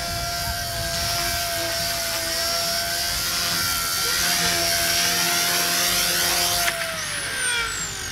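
XK K110 mini RC helicopter's brushless motors and rotor blades whining steadily in flight. Near the end the whine falls in pitch as the rotor winds down.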